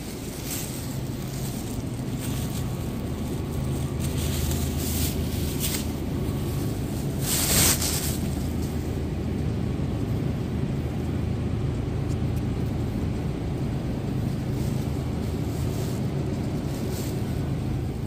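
Steady low machine hum in a grocery store, with a few short rustling noises, the loudest about seven and a half seconds in.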